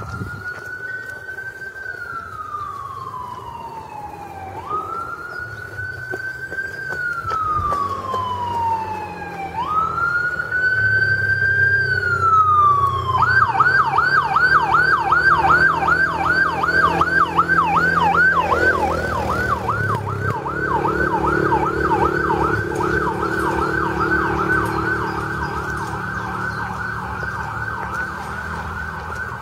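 Electronic siren sounding a slow wail of three long sweeps, each rising quickly and falling slowly. About a third of the way through it switches to a fast yelp of about three sweeps a second.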